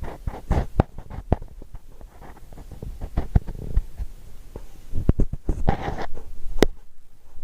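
Slime being squeezed and played with by hand, making irregular wet pops and clicks, with a longer squelch about six seconds in.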